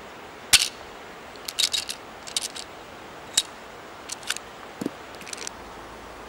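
Handling of blank-firing pistols: a string of short, sharp metallic clicks and clacks, some single and some in quick little clusters, the loudest about half a second in.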